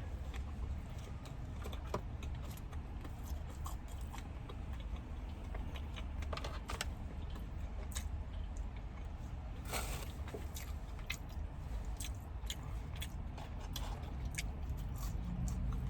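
Close-up eating sounds: biting and chewing fried chicken, with many short wet mouth clicks and smacks, over a low steady hum.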